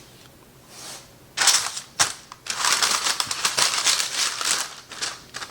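Parchment paper crinkling and rustling as it is handled. A sharp crackle comes about a second and a half in, then denser crackling for a couple of seconds.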